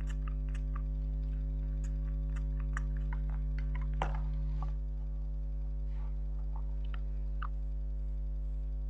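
Steady electrical hum with light ticks, about two or three a second for the first four seconds. A sharper click comes about four seconds in, followed by a few scattered ticks.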